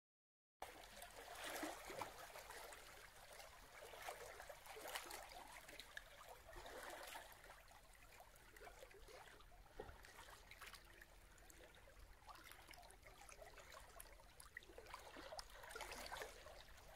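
Faint water trickling and lapping, with small splashy crackles. It starts abruptly about half a second in, after dead silence.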